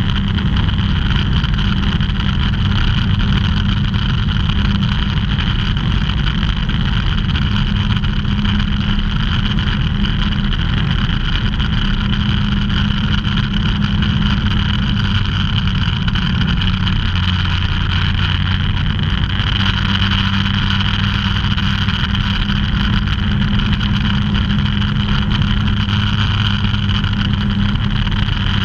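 Ultralight aircraft's engine and propeller droning steadily in flight, heard from inside the cockpit.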